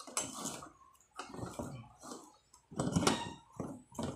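Sliding miter saw's turntable being unlocked and turned by hand: a series of short knocks and scrapes of the saw's parts, about five or six in all.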